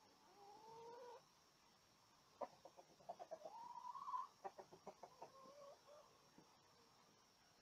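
Chickens clucking in a coop. About half a second in there is one drawn-out rising call. From about two and a half seconds comes a run of quick clucks, broken by a longer rising squawk, and it tapers off by about six seconds.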